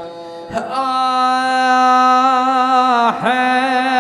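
A man chanting a mournful Arabic Husseini elegy, holding one long steady note from about a second in; the note breaks briefly near the end and the melody then wavers on in ornamented turns.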